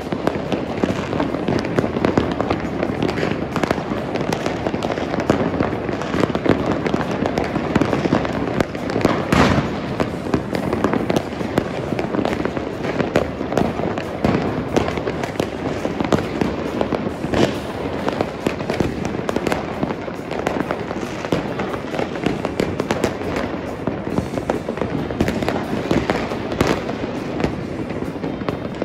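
Fireworks going off all over the city: a continuous din of overlapping bangs and crackles from many launches near and far, with a few louder, sharper bangs standing out, about a third of the way in and again a little past the middle.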